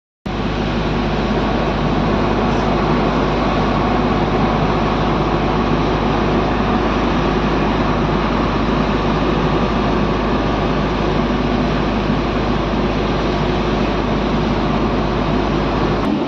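Asphalt mixing plant machinery running: a loud, steady mechanical noise with a constant low hum and several steady tones, unchanging throughout.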